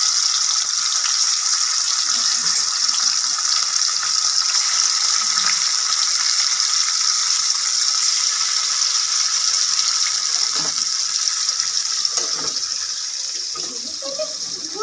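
Pieces of silver carp frying in hot mustard oil in a steel karahi, giving a loud, even sizzle that eases slightly near the end.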